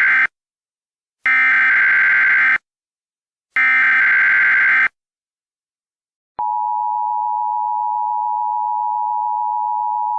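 Emergency Alert System header: the end of one SAME data burst, then two more bursts about a second long each, a pause, and from about six seconds in the steady two-tone EAS attention signal.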